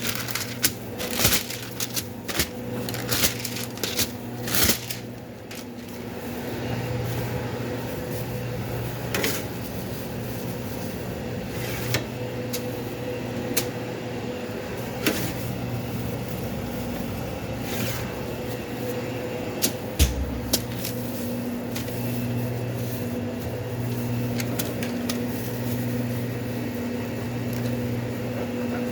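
Sandwich-shop counter sounds: a steady machine hum from the food-prep equipment, with quick clicks and knocks of things being handled, busiest in the first few seconds and scattered after that, and a dull thump about two-thirds of the way through.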